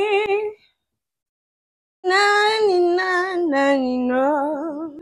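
A woman singing unaccompanied, holding notes with a strong vibrato: one phrase breaks off about half a second in, and a second long, wavering phrase starts about two seconds in and runs nearly to the end.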